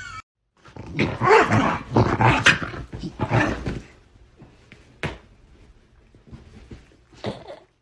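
A dog vocalising loudly for about three seconds, then quieter, with short sharp sounds about five seconds in and again near the end.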